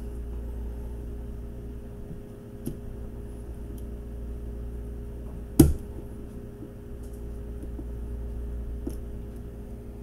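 Small clicks of a flat-tip screwdriver pressing the axle tabs on a diecast toy car's plastic base, with one sharp click a little past halfway, over a steady low hum.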